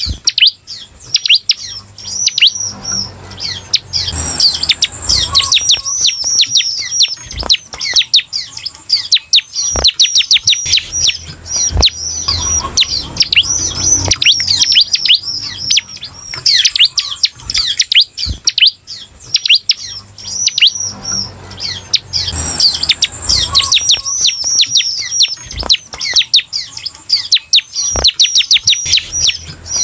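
Bar-winged prinia (ciblek) singing its 'semi' song: rapid runs of high, sharply falling notes, repeated in bursts with short pauses between them.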